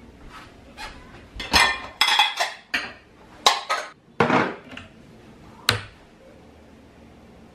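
Dishes and cutlery clinking and clattering as they are handled: a quick, irregular run of knocks and clinks, busiest in the middle, ending with one sharp clink.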